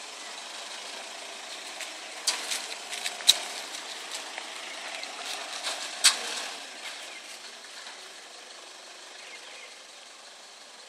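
Mazda Bravo 4x4 ute's engine running at low revs as the truck crawls over a rutted dirt track. Several sharp knocks and cracks fall between about two and six seconds in, the loudest near the end of that stretch.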